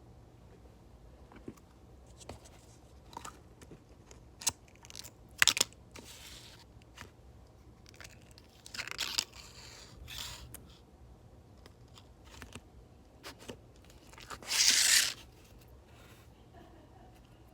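Slime being handled: scattered sticky clicks and crackles, with a longer, louder crackling stretch near the end.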